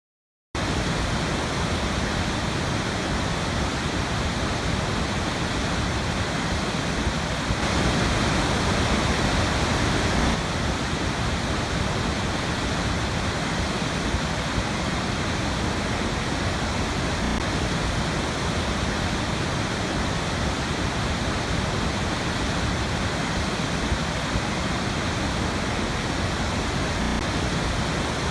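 Waterfall pouring into a river: a steady, even rush of falling water that starts about half a second in, swelling slightly for a couple of seconds around eight seconds in.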